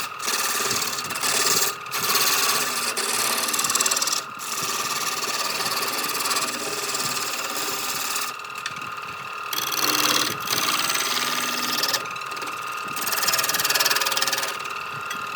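Electric power tool grinding or sanding wood, its motor running with a steady whine under a rough scraping noise. The noise drops out briefly several times.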